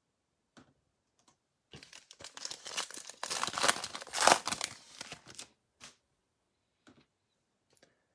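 Foil wrapper of a trading card pack being torn open and crinkled, a dense crackling that runs for about four seconds. A few light clicks from cards being handled come before and after it.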